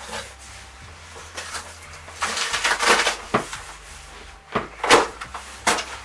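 Cardboard box rustling and scraping as a boxed mini fridge is worked out of it, in several rough bursts, loudest about three seconds in and again about five seconds in.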